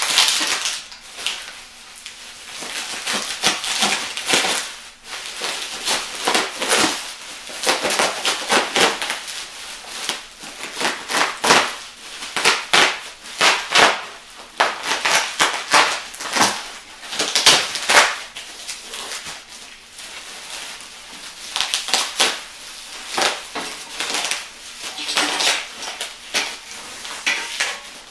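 Plastic bubble wrap crackling, rustling and tearing in quick irregular crackles as it is pulled and cut away from a set of steel exhaust headers.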